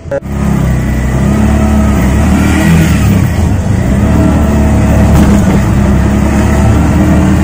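Auto-rickshaw's single-cylinder engine running as the rickshaw is driven slowly along a street, heard loud and close from inside the open cabin.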